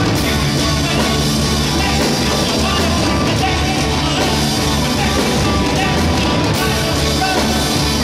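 Live rock band playing loud: electric guitar and keyboard, with a man singing into the microphone.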